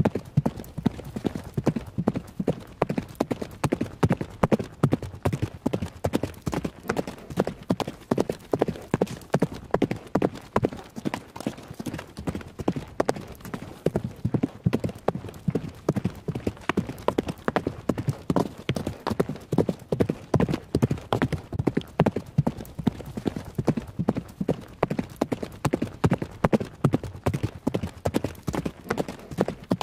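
Horse hoofbeats at a gallop: a steady, rapid run of hard hoof strikes, several a second, in a repeating rhythm.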